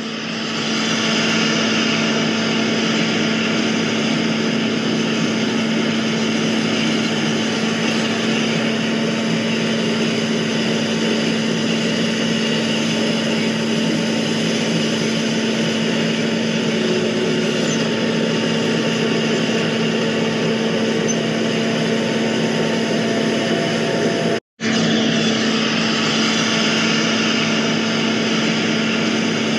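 Steady high-pitched hum of a DJI Mavic Pro quadcopter's propellers, holding one pitch, cut off for a moment about 24 seconds in.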